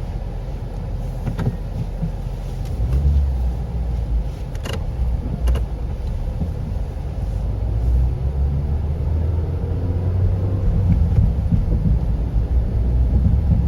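Suzuki Swift Sport ZC31S's 1.6-litre four-cylinder engine running, a steady low rumble heard from inside the car, with a few faint clicks. No front-end knocking is heard: with the engine simply running, the noise does not appear.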